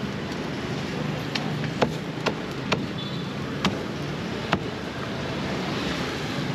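Cleaver chopping grilled chicken on a round wooden chopping board: about six sharp knocks at irregular gaps over a few seconds, over a steady hum of street traffic.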